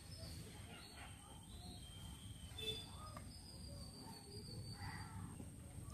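Faint outdoor background of scattered bird chirps over a thin, steady high insect drone.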